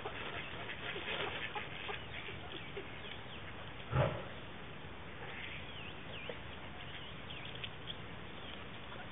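A flock of eastern spot-billed ducks foraging on grass: soft pecking and rustling, with a few short high chirps in the second half. One dull thump about four seconds in.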